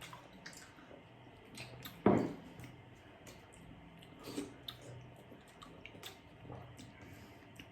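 Wet chewing and slurping of chicken jhol momo, dumplings in soup, with scattered small clicks and one louder thump about two seconds in.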